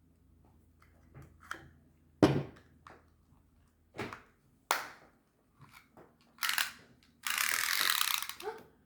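Plastic tape measure being worked by hand: a series of sharp clicks and knocks, the loudest about two seconds in, then a short scrape and a longer rasping, sliding noise near the end.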